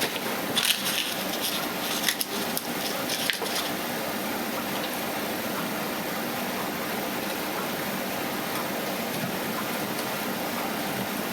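A few small clicks and taps from a screwdriver and hands working on a laptop's screen assembly in the first few seconds, over a steady hiss.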